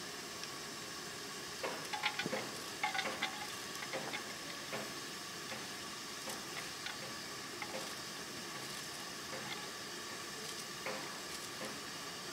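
Crackling snaps and rustles of fresh herb stems and leaves being picked apart by hand, loudest in a cluster about two to three seconds in and then scattered, over a steady hiss.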